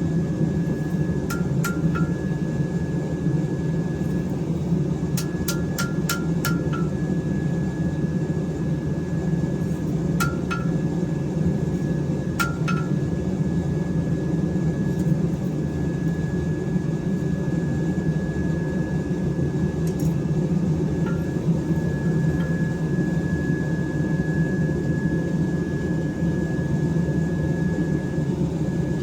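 Forge running with a steady low rushing noise while a steel knife blade heats up for its water quench, with a few light metallic clicks and clinks in small groups.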